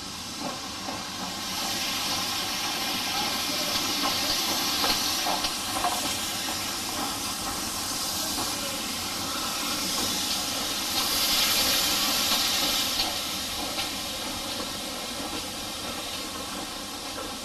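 Steam locomotive hissing steam, a steady hiss that swells twice, first a couple of seconds in and again about eleven seconds in.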